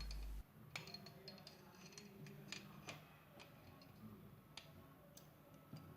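Faint, scattered metallic clicks and taps as pliers grip and bend the stapler's loose sheet-metal side plates to re-seat the staple holder.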